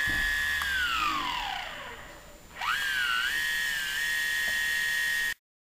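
Astro 3220 brushless motor running on optical rotor-position sensors, giving a steady high whine while it runs smoothly. About half a second in the pitch slides down as the motor slows, then about two and a half seconds in it spins back up quickly, wobbles slightly and settles at the same steady whine, which cuts off suddenly near the end.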